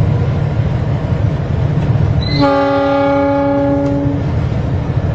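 Train horn sounding one long blast of about two seconds, starting a little before halfway, over the steady low rumble of the locomotive.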